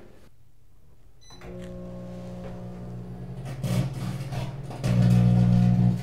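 Microwave oven beeps once as it is started about a second in, then runs with a steady electrical hum that grows louder near the end.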